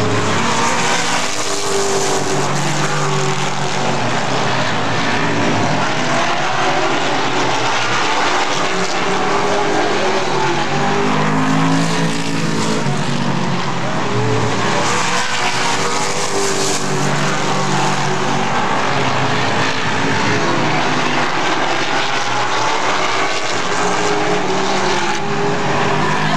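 A pack of super late model race cars at full racing speed on a short oval track. Their V8 engines overlap, each rising and falling in pitch as the cars pass and go around the turns.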